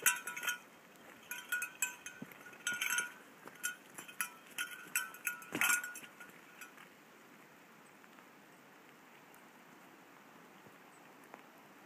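A cowbell clanking and ringing in irregular strokes, as if swinging while carried, stopping about six or seven seconds in.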